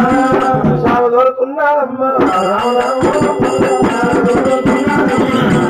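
Oggu katha folk music: singing voices over fast, dense drum strokes, the music filling out with a high shimmer from about two seconds in.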